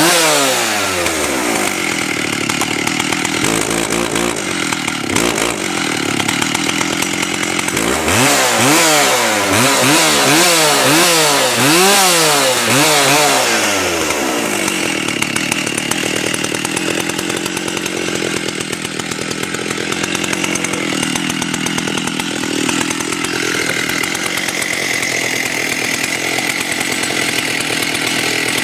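Stihl 084 chainsaw, a large two-stroke saw, being revved up and down repeatedly in quick throttle blips through the first half, then held at a steady high speed from about halfway.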